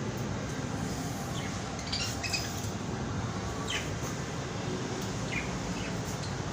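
A parrot giving a few short, high chirps, scattered a second or so apart, over a steady background rumble.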